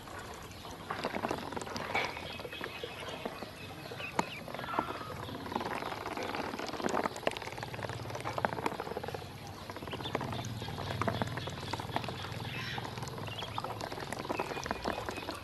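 Ducklings drinking and dabbling at a plastic poultry waterer in a basin of water: their bills click rapidly and irregularly against the plastic and in the water, with short high peeps now and then.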